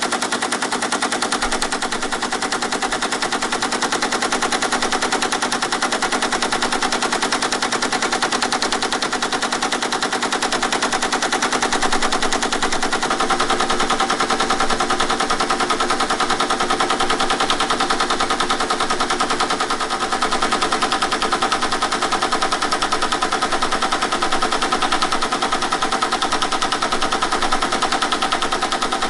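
Teletype ASR 33 running its paper-tape reader, sending a punched tape back out character by character at its fixed ten characters a second: a continuous rapid mechanical clatter. A steadier hum joins in about halfway through.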